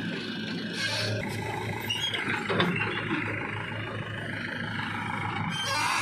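Diesel engines of a JCB 3DX backhoe loader and a tractor running under load as the backhoe works, a steady low hum with a rough noisy layer over it.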